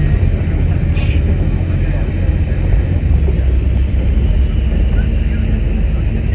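Rear-mounted engine of a 2013 IC Bus RE school bus running while the bus drives, a steady low rumble with road noise. A brief sharp click about a second in.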